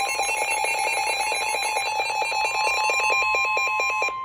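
Several weather alert radios going off together for a severe thunderstorm warning: rapid beeping alarms, about ten beeps a second, layered over the steady 1050 Hz NOAA Weather Radio warning tone. Near the end the beeping cuts off, leaving the steady tone alone.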